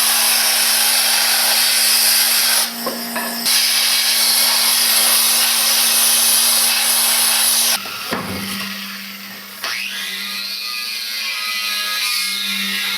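A power tool runs loudly and steadily, with a brief drop about three seconds in, then cuts off about eight seconds in. A quieter, lower-level sound follows to the end. The tool is working out old furnace cement from the wood stove.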